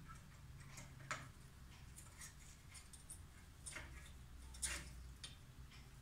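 Faint, scattered clicks and taps of a pet parrot's feet gripping and stepping on a metal stand as it climbs down. The sharpest clicks come about a second in and again near four and five seconds.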